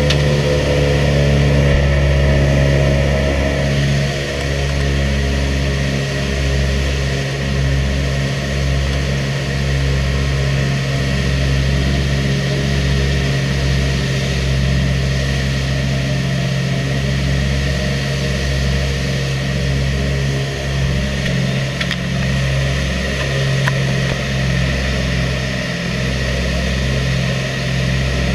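The B-25 Mitchell bomber's twin Wright R-2600 radial engines and propellers running at high power through takeoff and climb-out, heard from inside the fuselage as a loud, steady drone. The drone eases slightly about four seconds in.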